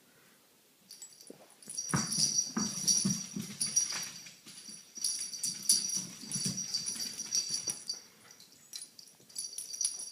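Small dog breathing hard and whimpering during play, with a metallic jingling throughout.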